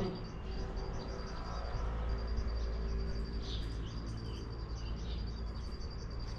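Small birds chirping: a high, rapid chirp repeats evenly about five times a second, with a few separate short chirps in the middle, over a steady low rumble.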